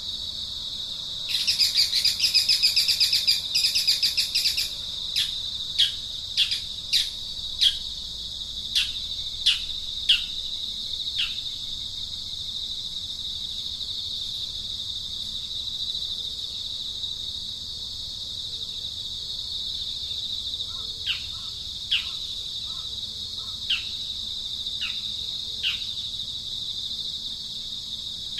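Steady high-pitched insect drone with birds calling over it: a fast trill lasting about three seconds starting a second in, then a series of short falling chirps.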